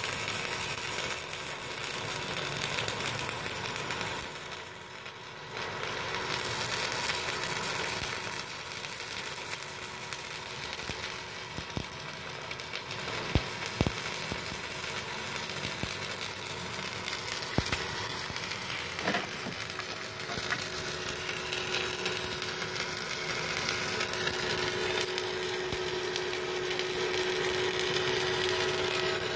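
Stick-welding arc crackling and sizzling steadily as a 4 mm E6013 rod burns on a MultiPro EG 200A-SC DC inverter welder set at 150 amps. The crackle dips for about a second around four seconds in, then carries on.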